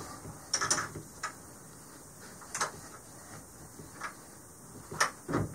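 Scattered sharp clicks and knocks of a pistol and a 3D-printed magazine-well vise block being handled and fitted together, about six in all, several close together about half a second in and again near the end.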